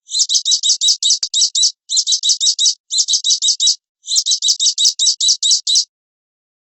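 Small songbird calling in fast runs of high, harsh chirps, about five a second, in four bursts; the calls stop about a second before the end.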